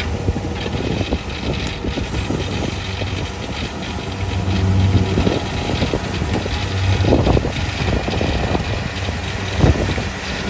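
Kubota DC70 combine harvester's diesel engine running steadily as the machine crawls along on its tracks, with a few sharp knocks along the way.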